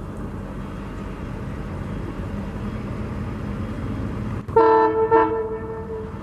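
EMD WDP4 diesel-electric locomotive's 16-cylinder two-stroke engine running with a steady rumble as the train passes slowly. About four and a half seconds in, its multi-tone horn sounds two short blasts, the second trailing off.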